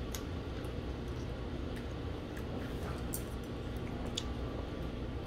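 Steady low background hum, with a handful of light, sharp clicks of chopsticks and tableware at the dinner table.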